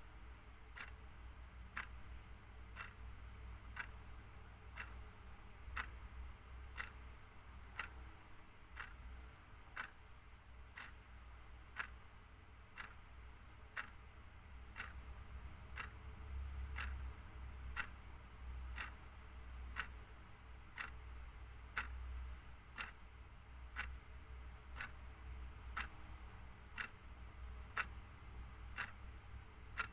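Clock ticking steadily, with evenly spaced sharp ticks over a faint low hum.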